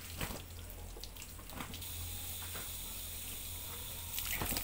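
Water spraying from a garden hose and splashing onto a motorcycle, with a few short sharp sounds near the end.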